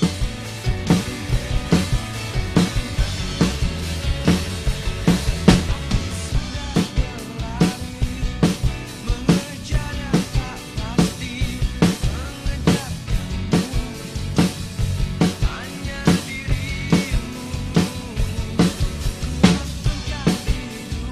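Acoustic Pearl drum kit played in a rock beat, with bass drum, snare and cymbals, over a drumless backing track of a pop-rock song with guitar and bass. The drums come in at the very start, lifting the level from the backing track's guitar intro.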